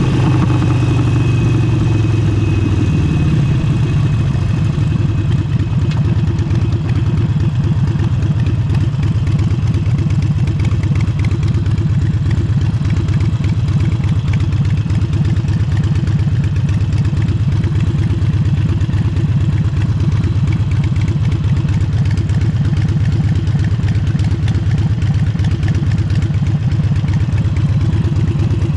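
Harley-Davidson Forty-Eight's air-cooled Evolution V-twin through a Vance & Hines aftermarket exhaust. Its revs drop over the first few seconds, then it runs steadily at low revs with a fast, even pulsing beat.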